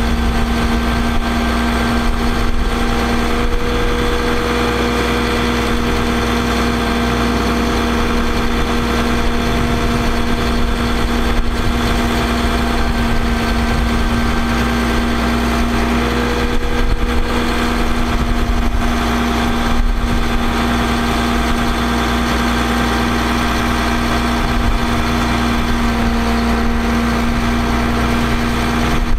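Truck engine idling steadily with a constant hum, powering the hydraulics of an Altec AA755L aerial bucket boom as it swings and lowers.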